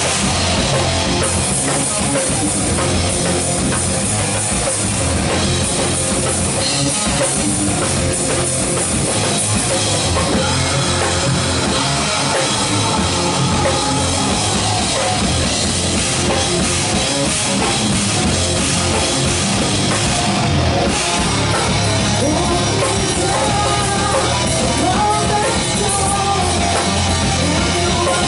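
Live heavy metal band playing loud: distorted electric guitar, bass guitar and a pounding drum kit, mostly instrumental, with a woman's lead vocal coming back in near the end.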